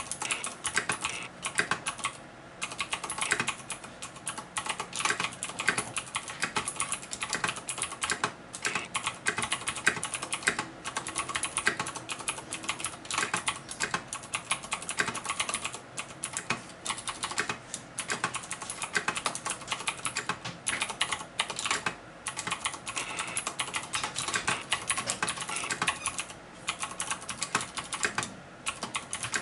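Typing on a Deck Hassium Pro mechanical keyboard with Cherry MX Blue switches: a rapid, continuous stream of sharp clicky keystrokes with a few brief pauses.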